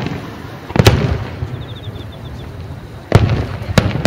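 Aerial firework shells bursting overhead: sharp booms about a second in and twice more past three seconds, each trailing off in a rolling rumble.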